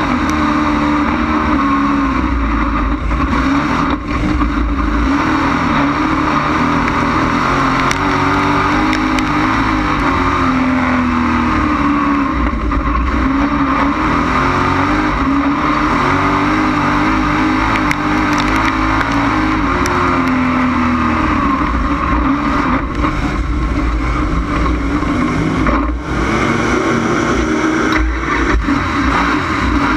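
Dirt-track race car's engine running hard under race load, heard on board, its note rising and falling every few seconds as it laps the oval, with a brief dip about four seconds in and again near the end.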